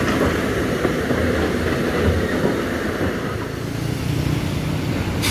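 A heavy diesel engine running steadily under a broad rumble of engine and road noise, its low hum growing a little stronger near the end.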